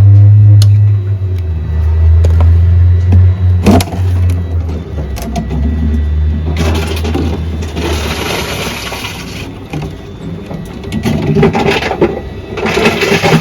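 Plastic bottle recycling machine at work: a low motor hum that stops about eight seconds in, a few sharp clicks, and two long bursts of rushing, crackling noise, about halfway and near the end, as bottles are taken in.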